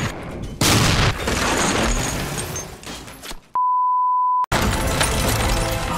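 Animated tank cannon shot, a loud sudden blast under a second in, followed by rumbling battle noise. Then comes a pure, steady beep about a second long, a placeholder tone laid over a "please wait" card, before the noise returns.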